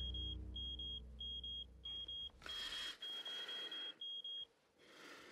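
Electronic alert beeping: a high, steady-pitched tone sounding in quick pairs of beeps, repeating for about four and a half seconds and then stopping. It is the sort of alert that calls someone away at once.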